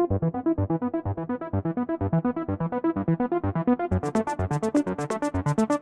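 Background electronic music: quick repeating synth-keyboard notes, with a sharp ticking beat coming in about four seconds in.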